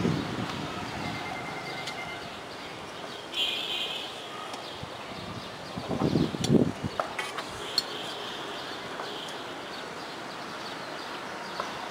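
Cloth rustling and a few light clicks as a steel puja plate and its small pots are handled, about halfway through, over steady background noise.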